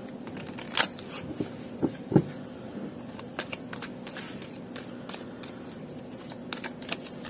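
A deck of cards being shuffled by hand, overhand style: a run of soft card flicks and taps, with a few louder knocks in the first two or three seconds, over a faint steady hum.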